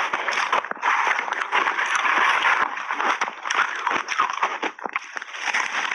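Crunching of shaved ice, close-miked: a metal spoon scraping through it in a plastic tub and big bites being chewed, a dense run of crackles.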